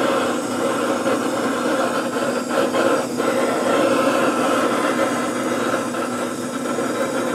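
Handheld propane torch burning with a steady hiss as its flame lights wood chips to make extra smoke, with a steady hum underneath.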